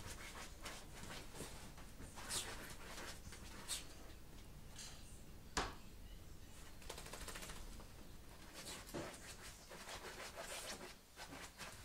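Small dog moving about on a bed, its paws scratching and rustling the duvet, in faint scattered scuffs and light taps, with one sharp tap about halfway through.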